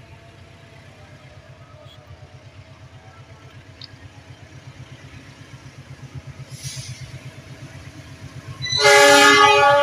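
Diesel locomotive approaching, its engine throbbing and growing steadily louder as it nears. Near the end it sounds a loud blast on its multi-tone horn.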